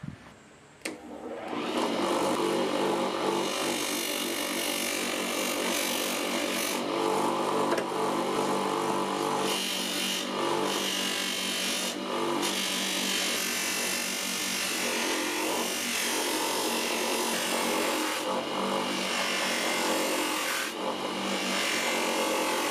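Bench grinder running with a cloth buffing wheel, a steel knife blade pressed against the spinning wheel to polish it: a steady motor hum with rubbing over it. The sound comes in about a second and a half in.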